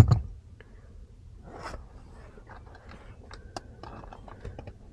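A couple of knocks at the very start, then light scattered clicks and taps of small parts being handled and fitted in a car.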